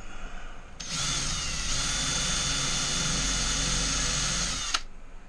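Power drill boring a rivet hole into an RV wall, a depth stop on the bit limiting how deep it cuts. The drill starts about a second in, runs steadily with a high whine for about four seconds, and cuts off sharply.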